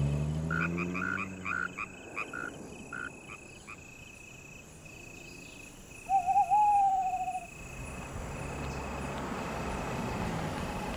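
Night forest ambience: a low engine hum rising in pitch as the car pulls away, a quick run of short chirping calls, then one wavering owl hoot about six seconds in, the loudest sound. A low rushing sound builds near the end.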